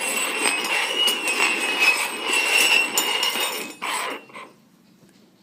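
Cups or containers being slid and shuffled on a hard surface, a steady scraping with frequent clicks and clinks and a faint squeak, stopping about four seconds in after two last short scrapes.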